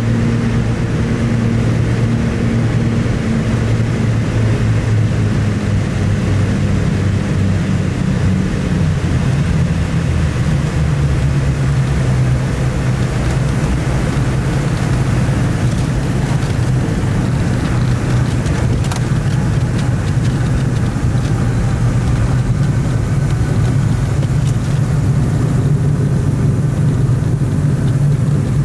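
Twin piston engines of a Cessna 320 Skyknight heard from inside the cabin, a steady drone. About eight to ten seconds in the engine note drops as power comes back for the landing, then holds at a lower steady drone through the rollout.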